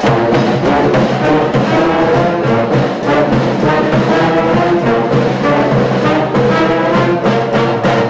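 Brass band playing, horns holding full chords over a steady beat.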